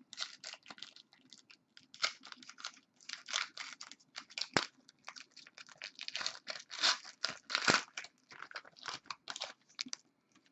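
Trading cards and their paper or foil packaging being handled: irregular crinkling and rustling with sharp little clicks as cards are flipped and sorted.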